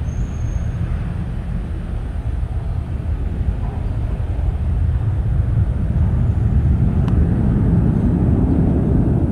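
Low rumble of a jet airliner's engines, growing louder about halfway through.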